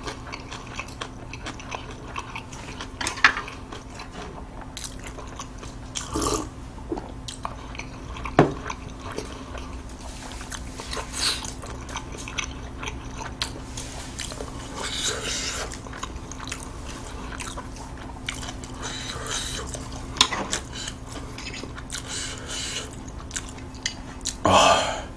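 Close-miked chewing: a mouthful of food being chewed with scattered wet clicks and smacks, and a steady low hum underneath. There is a louder burst near the end.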